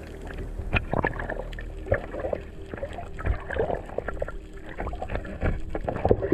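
Muffled underwater sound picked up through a camera's waterproof housing: a steady low rumble of moving water, with irregular knocks and clicks as the diver swims and handles the speargun.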